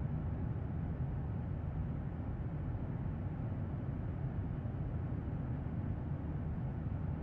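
Steady low drone of an airliner cabin in flight: an even engine rumble with air hiss, unchanging throughout.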